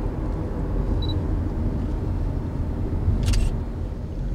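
Steady road and engine rumble inside a moving car's cabin, with a short high beep about a second in and a camera shutter click about three seconds in.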